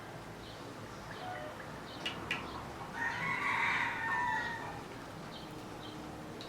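A rooster crowing once, a call of about a second and a half midway through, after two sharp clicks. Faint small-bird chirps sit in the background.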